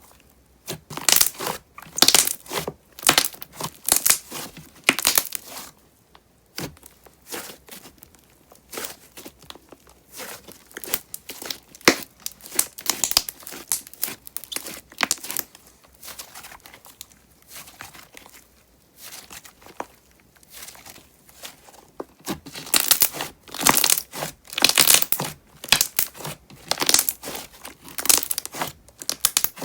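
Hands squeezing and pressing a thick, glossy slime with clay mixed into its base, making runs of fine, crackly bubble pops. The popping comes in irregular bursts, densest near the start and again in the last third, with softer squishing in between.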